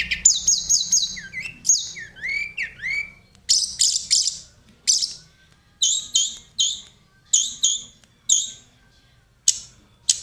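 Tledekan gunung, a blue flycatcher, singing a varied song of short high whistled phrases, quick trills and rising and falling slurred notes, with brief pauses between phrases.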